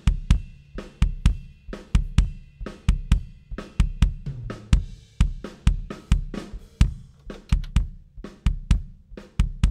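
Unprocessed close-miked kick-drum track from a 22-inch Tama kick drum, recorded with a Shure Beta 91 inside the drum. It plays a steady groove of deep thuds about twice a second, with quieter snare, hi-hat and cymbal bleeding into the microphone.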